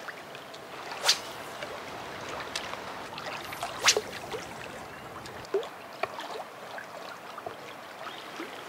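Small waves lapping and gurgling against a rocky lakeshore, with little plops and ticks throughout. Two sharp clicks, about a second in and near four seconds in, are the loudest sounds.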